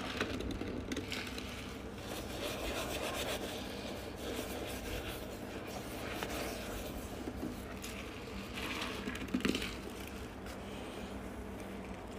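A gloved hand scrubbing a toilet bowl: fairly quiet, irregular rubbing and scraping strokes against the porcelain and the wet foam.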